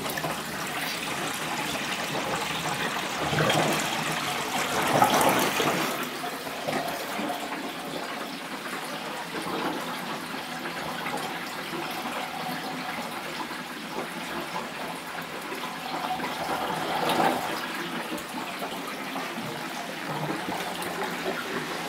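Aquarium drain water gurgling and rushing down dual external Durso standpipe overflows into the sump, loud and flush-like, with air drawn in through holes in the tees churning into the flow. It swells louder twice, a few seconds in and again past halfway: this overflow design makes a ton of noise.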